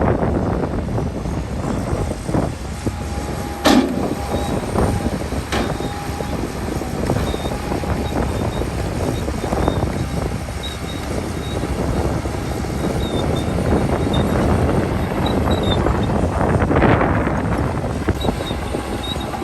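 Heavy diesel earthmoving machinery working under load, a steady engine noise that swells louder near the end. A sharp knock sounds about four seconds in and a lighter one a couple of seconds later.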